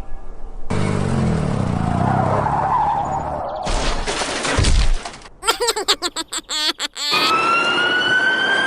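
Cartoon vehicle sound effects: a motor hums steadily, then comes a rapid rattling clatter, then a siren-like tone that rises slowly for the last second or so.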